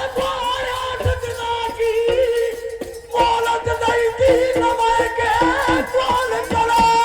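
Gotiya, a rural north Indian devotional folk song, sung with held, wavering notes over quick hand-drum strokes, with a short break about three seconds in.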